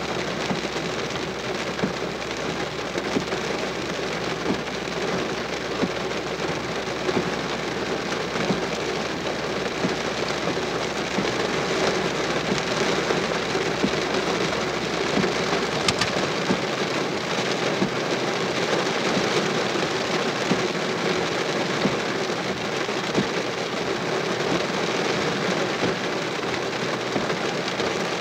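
Steady rain falling during a severe thunderstorm, a dense even hiss of drops on surfaces, with one sharp click about sixteen seconds in.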